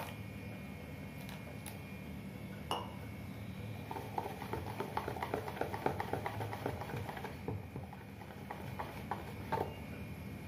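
Wire whisk beating thin gram-flour batter in a plastic bowl, with quick clicking and tapping of the wires against the bowl. The clicking is densest from about four seconds in to about seven and a half seconds, with a few separate taps near the end.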